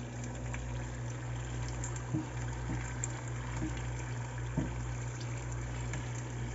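Crab rangoon wontons deep-frying in oil over moderate heat: a steady bubbling hiss with a few small pops, over a constant low hum.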